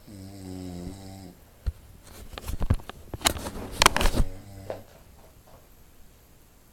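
Snoring: a droning snore about a second long at the start, then a louder rough, rattling stretch from about two to four seconds in, and a short fainter snore after it.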